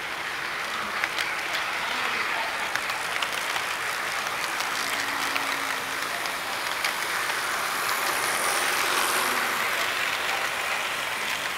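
HO scale model freight cars rolling along the track close by, a steady rushing rattle of small metal wheels on rail with scattered light clicks.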